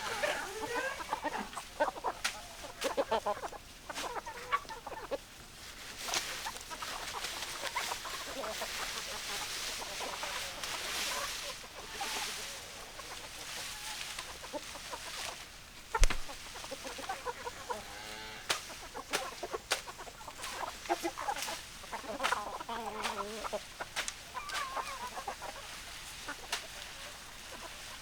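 Domestic chickens clucking, a flock of hens making many short calls, thickest near the start and again in the second half. A single sharp knock about halfway through.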